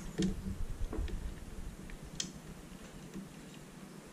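A few faint clicks and light handling noise as fingers plug a small wire connector into a circuit board.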